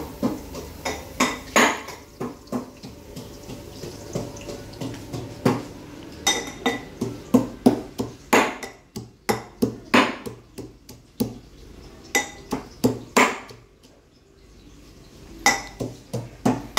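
Metal kitchen utensil clanking against a cooking pot, in quick irregular clinks and knocks, some with a short metallic ring.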